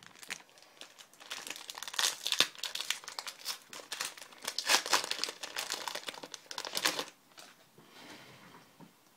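Trading card pack wrapper crinkling and tearing as it is opened, in quick rustling bursts that begin about a second in and stop about seven seconds in, followed by faint handling.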